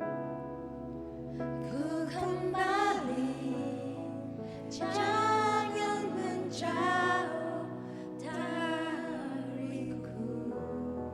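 Worship song: a solo voice singing three phrases over sustained keyboard chords.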